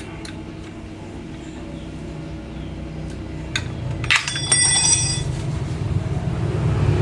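Small metal parts clicking, then a sharp metallic clink about four seconds in that rings for about a second, as a scope is fitted to an air rifle. A low rumble grows louder through the second half.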